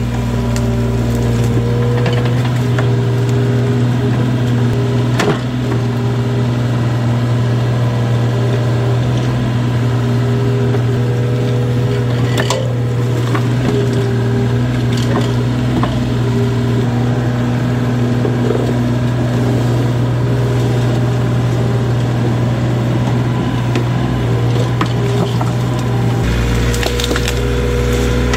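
Heavy diesel excavator engine running steadily with a deep hum, with scattered knocks and cracks of machinery and earth or wood.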